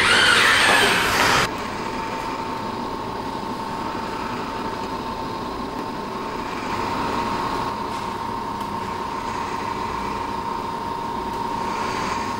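A loud rushing noise cuts off abruptly about a second and a half in, leaving a steady mechanical hum with a constant whine.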